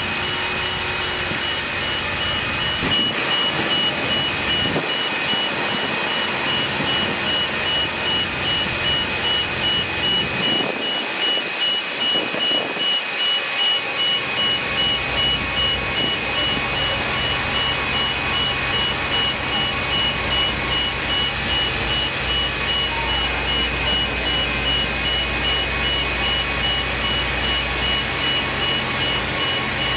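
Reversing alarm on a construction vehicle beeping in a steady repeating pattern. A heavy engine runs underneath and grows louder from about halfway.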